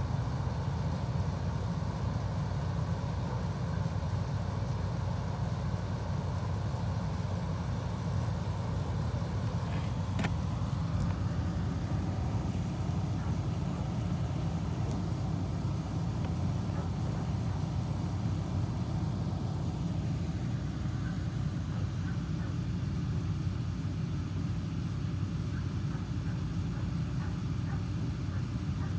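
Steady low mechanical hum with no change in level, and a faint click about ten seconds in.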